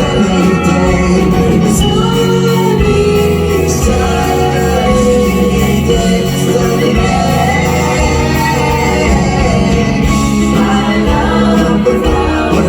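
Live pop band playing on stage, with singing over the band.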